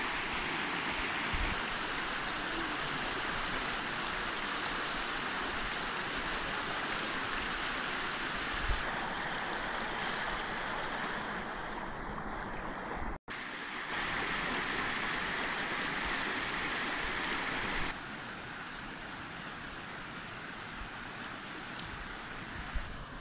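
Fast shallow river rushing over rocks in a steady rush of water noise. It cuts out for an instant about halfway through and drops to a softer level about three-quarters of the way through.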